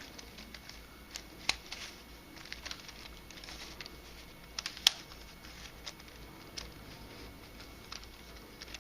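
3D-printed nylon Unbandaged Helicopter Skewb twisty puzzle being turned by hand: its pieces click and rub with scattered light clicks, the sharpest about five seconds in.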